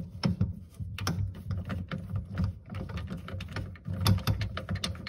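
Pop-up drain pivot nut being unscrewed by hand and the pivot rod worked loose from the drain tailpiece: a quick, irregular run of small clicks and rattles with low handling knocks.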